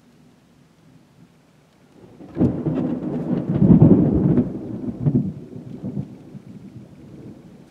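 Thunder: a sudden clap about two seconds in that rolls into a deep rumble and dies away over the next few seconds.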